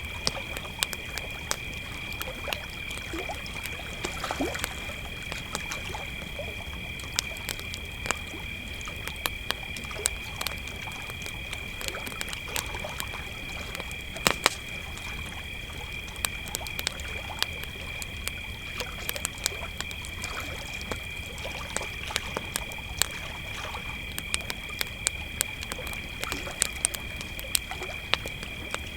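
Crickets singing in a continuous high chorus, over a wood campfire crackling and popping at irregular moments, with a sharper pop about midway.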